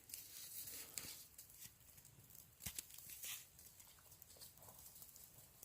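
Near silence with faint scattered rustling and a few light clicks.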